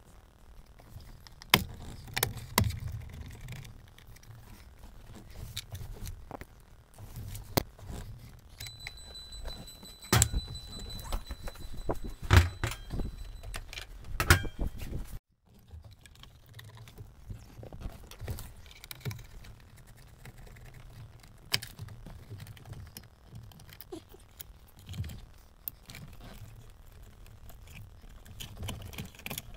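Scattered clicks, knocks and rattles of hands and tools working on a car's interior, with a few louder knocks. About nine seconds in, a steady high beep sounds for about a second and a half.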